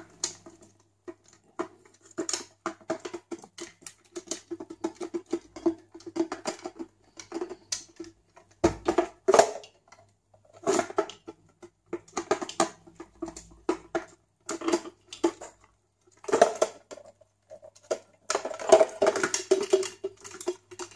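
Handling noise from the yellow plastic Vulcan flashlight housing being turned and worked to get its 6 V sealed lead-acid battery out: irregular clicks, knocks and light rattles in clusters.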